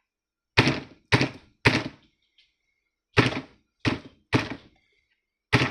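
Hard knocks struck close by in groups of three: three knocks about half a second apart, a pause of about a second and a half, then the next three. Each knock is sharp and dies away quickly, and the same beat runs on into the next group.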